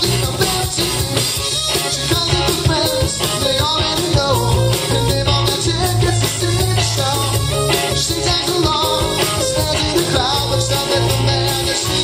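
Live rock band playing amplified music on electric guitar, electric bass, drum kit and keyboard, driven by a steady drumbeat.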